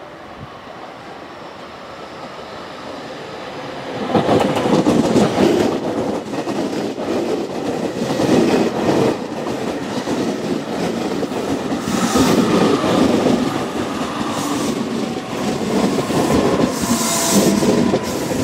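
A JR Kyushu 813 series electric multiple unit approaches and passes close by. Its rumble swells over the first four seconds, then stays loud with wheel-on-rail noise and clickety-clack from the rail joints as the cars go by.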